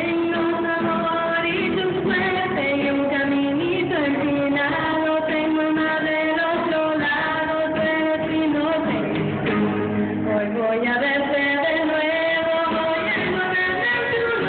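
A woman singing a song into a handheld microphone, her voice amplified over a PA with musical accompaniment in a large hall.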